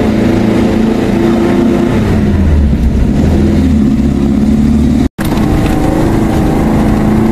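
Car engine running steadily with road noise, heard from inside the cabin as the car drives along. A deeper low hum comes in for a few seconds in the middle, and the sound cuts out for a split second about five seconds in.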